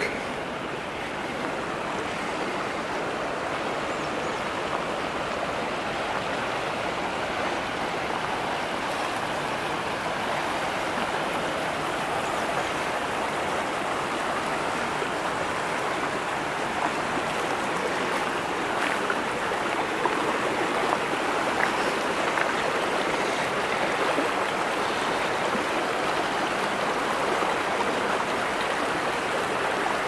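Shallow creek flowing over a cobble bed, a steady rushing babble that grows slightly louder in the second half.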